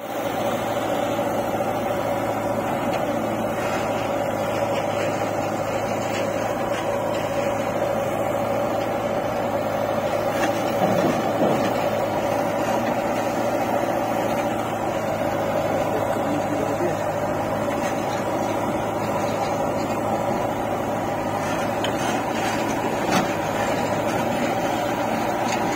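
Diesel engine of a JCB 3DX backhoe loader running steadily under working load as its backhoe digs and swings soil over to a tractor trolley, with a brief rise about eleven seconds in.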